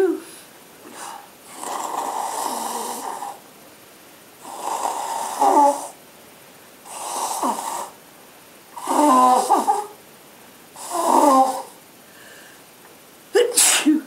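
A person sneezing again and again, about six sneezes roughly two seconds apart, several with a voiced 'achoo'. The last one, near the end, is short and sharp.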